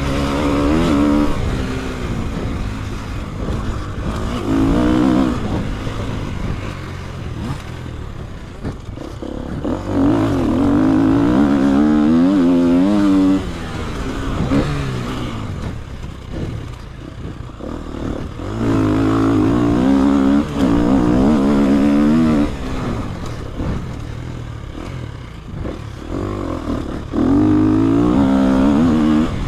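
KTM EXC-F 250 single-cylinder four-stroke enduro engine under hard riding: several bursts of full throttle with the pitch climbing and stepping through gear changes, then falling back as the throttle closes between them.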